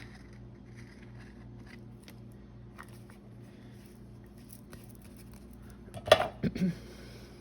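Light handling of craft supplies, with a few faint ticks over a steady low hum, then a short, loud sputtering burst about six seconds in.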